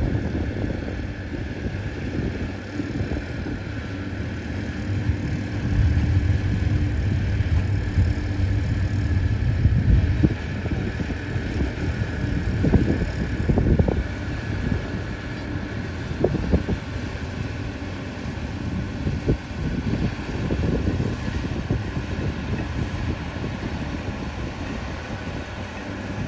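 Steady low engine rumble with wind buffeting the microphone and a few short knocks.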